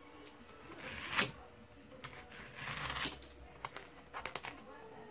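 A utility knife blade slicing through a foam wing along a steel ruler: drawn-out scraping strokes, with louder ones about a second in and about three seconds in, then a quick run of short ticks near the end.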